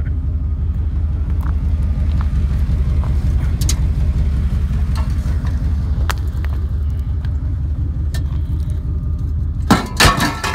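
A vehicle driving, a steady low engine and road rumble, with a few faint clicks and a short louder burst of noise near the end.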